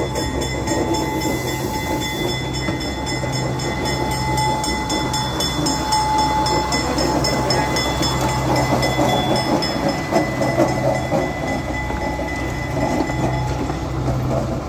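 East Broad Top diesel locomotive M-7 running as it passes at close range pulling open cars, with the steady drone of its engine and the wheels clicking over the rail joints.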